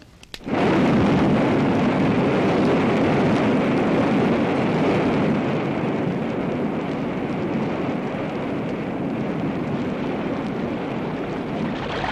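Waterfall rushing: a dense, steady noise of falling water that starts suddenly about half a second in and eases slightly in the second half.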